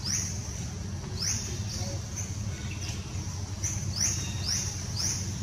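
A bird chirping: about six short, sharp high notes that sweep quickly upward, two spaced well apart and then four in quicker succession near the end, over a steady low rumble.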